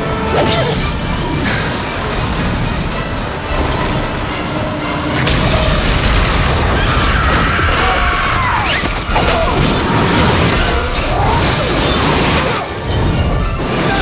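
Film avalanche sound effects: a continuous heavy rumble of snow and ice, with crashes and shattering, mixed with background music.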